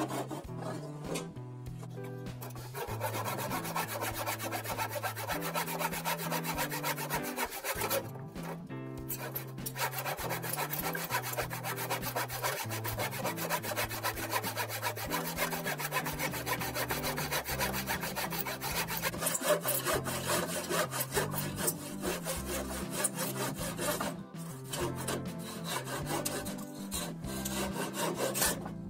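Rusty handsaw cutting through an old wooden pallet board with steady back-and-forth rasping strokes, stopping briefly a few times, over quiet background music.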